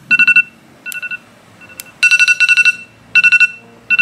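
Smartphone alarm going off: rapid high beeps in short bursts, with brief pauses between the bursts, the longest burst about halfway through. It is a morning wake-up alarm.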